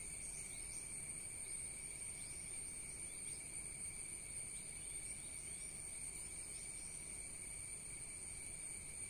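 Steady insect chorus in the background, a continuous high trilling sitting at two pitches, over a low hum of outdoor noise.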